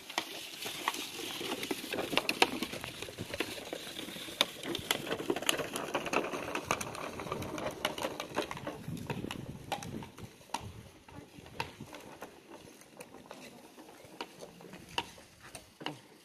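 Electric hoverboard kart motors humming as the karts drive over snow, fading after about ten seconds as they move away, with many short clicks and crackles throughout.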